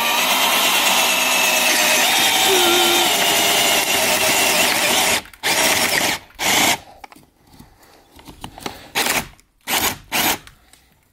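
Power drill boring a hole through a door for a lock. The motor runs steadily under load for about five seconds, then fires in several short bursts as the cut finishes.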